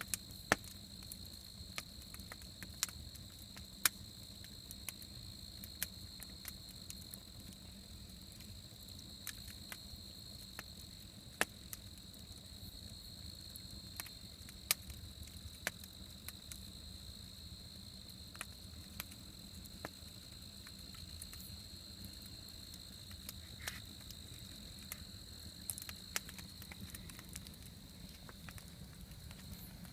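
Campfire crackling with scattered sharp pops, irregularly every second or so, over a steady high-pitched insect trill that runs without a break.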